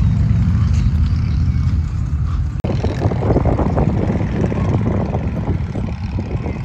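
Wind buffeting the microphone in a steady low rumble, joined about two and a half seconds in by footsteps crunching on railroad gravel ballast.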